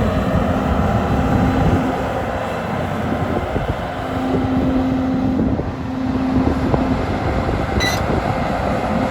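Doosan DX420LC tracked excavator running, its diesel engine and hydraulics working steadily with a droning tone that comes and goes. A brief high squeak sounds near the end.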